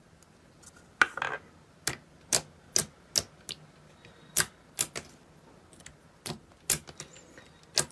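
Smooth glue-based slime worked by hand, giving about a dozen sharp, irregular popping clicks as it is pressed and stretched.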